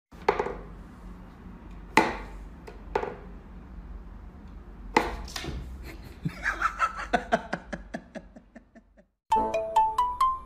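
Sharp knocks and clicks from a wooden whack-a-mole cat toy as a cat bats at the pegs popping up through its holes. A few loud knocks with a short ring are followed by a run of quicker, lighter taps. About nine seconds in, bright music of quick mallet-percussion notes starts.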